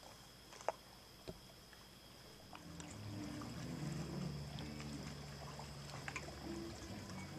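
Faint distant music with a low bass line carrying across the water, coming in about three seconds in. A couple of sharp clicks come before it.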